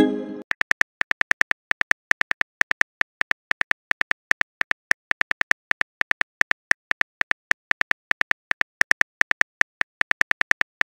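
Phone keyboard typing clicks, a rapid even run of short taps at about six or seven a second as a message is typed, with a brief chime-like tone right at the start.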